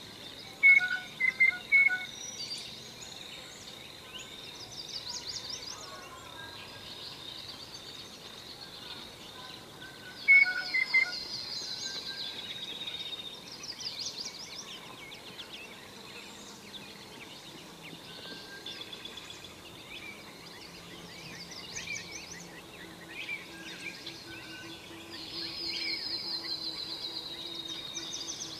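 Blue jay calling: a quick run of three or four short, loud, pitched calls about a second in, and another run about ten seconds in, with other birds chirping and trilling throughout.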